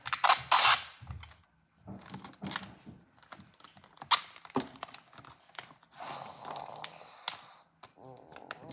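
Sticky tape pulled off a roll in loud short rips near the start, then paper being handled and taped down, with scattered clicks and taps.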